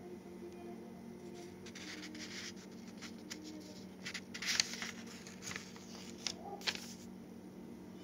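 Soft handling noise: short scratchy rustles, clustered about two seconds in, from four to five seconds, and again near seven seconds, over a faint steady low hum.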